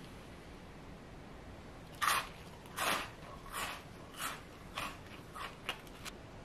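A crisp rusk crunching: one loud bite, then a string of shorter chewing crunches, each softer than the last, over a faint steady hiss.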